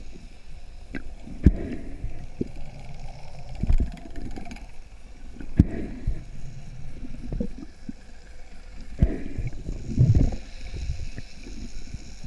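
Underwater sound of a diver hauling in a speared mangrove snapper on the spear's line: a muffled low rush of water movement with several sharp knocks, and a louder low rush about ten seconds in.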